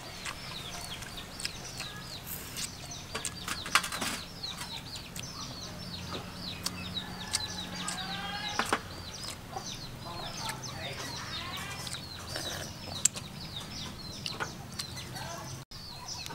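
Chickens clucking, with many short high chirps throughout and a few longer calls around the middle.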